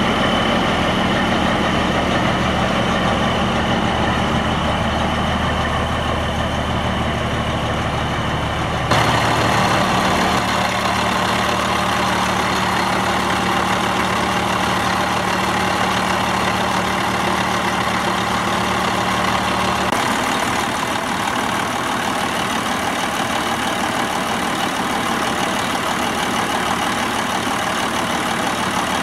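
Semi truck's diesel engine idling steadily. Its tone shifts abruptly twice, about a third and about two-thirds of the way through.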